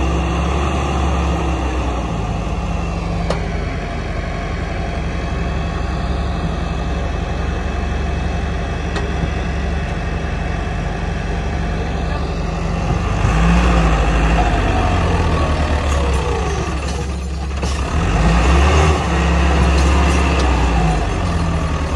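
Farm tractor's diesel engine labouring at high revs as it strains to pull a loaded trailer stuck in mud. It gets louder about halfway through and again near the end, as it is pushed hard enough to lift the front wheels.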